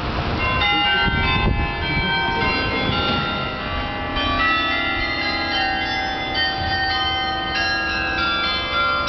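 Bells ringing, many struck tones overlapping and renewed again and again from about half a second in, over a low rumble.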